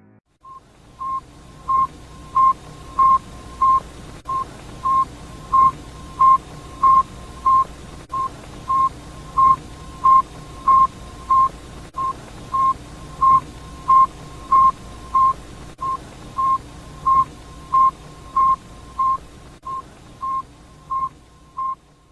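Sputnik 1's radio signal as received by radio: a steady train of short, even beeps on a single tone, about three every two seconds, over steady radio hiss. The beeps begin about half a second in.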